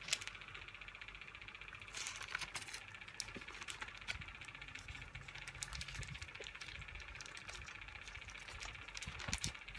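A person biting into and chewing a wrapped chicken burrito: faint scattered small clicks and wrapper crinkles over a steady low background hum.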